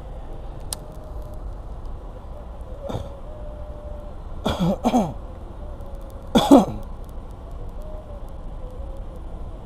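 A man clearing his throat and coughing in a few short bouts: a faint one about three seconds in, two close together around four and a half seconds, and the loudest near six and a half seconds, each dropping in pitch. A low steady outdoor rumble runs underneath.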